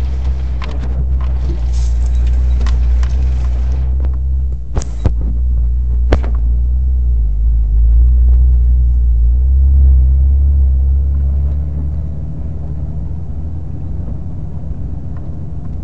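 Jeep Wrangler with a manual gearbox driving slowly over rough dirt, heard from inside the cab: a steady low engine and drivetrain rumble that swells about halfway through and eases toward the end. A hiss runs for the first four seconds, and two sharp knocks come about five and six seconds in.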